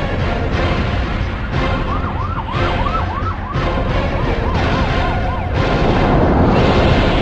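Emergency siren yelping, a fast rise-and-fall in pitch repeating several times a second, from about two seconds in until a little past halfway, dropping lower partway through. Throughout, a loud dense background track.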